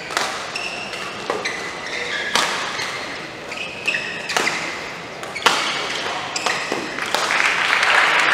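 Badminton rally: rackets striking the shuttlecock with sharp smacks about once a second, with short high squeaks from shoes on the court between hits. Crowd cheering and clapping swells near the end.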